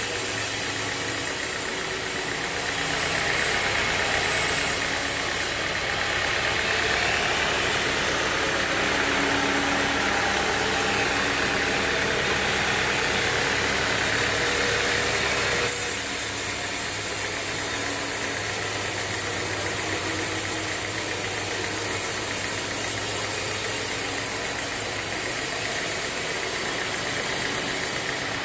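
Band sawmill running: a steady mechanical drone with a rattle, with a brighter hiss in the first half that drops away about halfway through.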